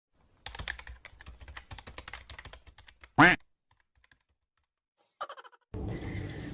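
Rapid clicking like typing on a computer keyboard for about two seconds, then one short, loud swooping tone about three seconds in; a brief tone and a rush of sound lead into music near the end.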